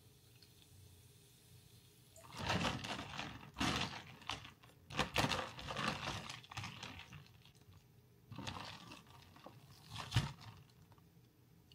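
Crunching sounds close to the microphone, in two spells: one starting about two seconds in and lasting several seconds, another starting about eight seconds in, with a sharp crack near its end.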